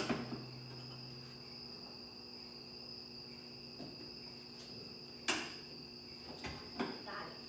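Sharp clicks of wire cutters snipping through old truck wiring, one at the start and a louder one about five seconds in, with smaller clicks near the end. Under them a cricket trills steadily at a high pitch, over a low hum.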